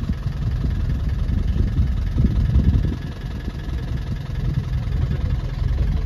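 Safari game-drive vehicle's engine idling, a steady low rumble.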